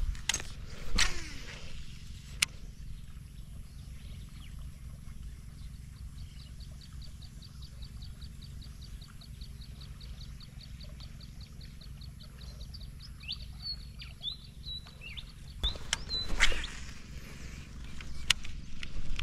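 Baitcasting rod and Daiwa Steez A TW reel casting twice, a swish about a second in and again near the end, each followed about a second and a half later by a sharp click of the reel. In between, a bird calls with a quick, even run of high ticks and then a few chirps, over a steady low rumble.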